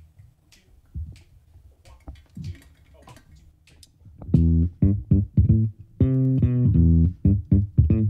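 A jazz band starts a tune about four seconds in, led by electric bass and guitar playing short, punchy notes and then held chords. Before that there are only faint scattered clicks.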